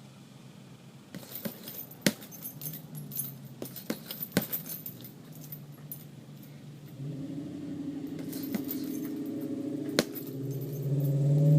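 Boxing gloves striking a hanging heavy bag a few times, with a metallic jingle of the bag's hanging chains around the blows. From a little past halfway a low engine hum builds and rises in pitch near the end, like a vehicle passing.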